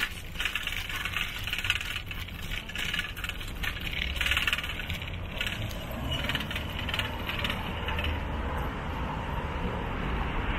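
A bicycle rattling and clattering as it is ridden over a bumpy surface: a rapid, irregular patter of small metallic clicks over a low rumble of the ride. The clatter eases after about eight seconds, leaving a smoother rush.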